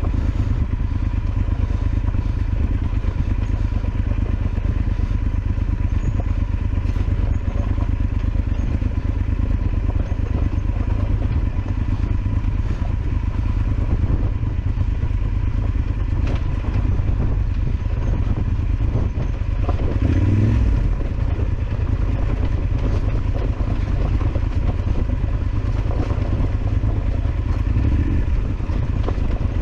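Yamaha Super Ténéré XT1200Z's parallel-twin engine running steadily as the bike is ridden over a rough track, with scattered knocks and clatter. The engine swells briefly about two-thirds of the way through.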